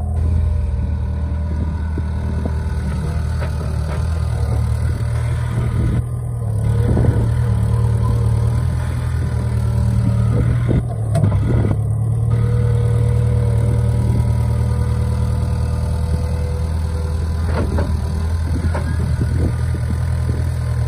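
Mini excavator's diesel engine running steadily under load, working harder from about four seconds in, with a few scattered clanks. The machine is bogged in deep mud with a track it cannot pull free.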